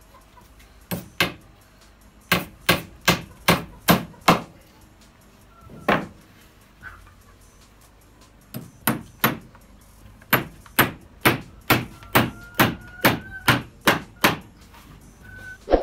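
Hammer driving nails into wooden battens. The strikes come in quick runs of about two to three a second, with short pauses between runs.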